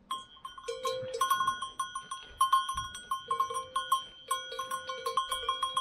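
Livestock neck bell clanking in quick, uneven strokes, each strike ringing on briefly, as a cow grazes; it starts suddenly right at the beginning.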